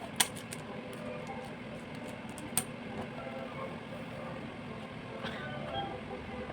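Handling noises: two sharp clicks about two and a half seconds apart and a few fainter ticks, over a steady low background rumble.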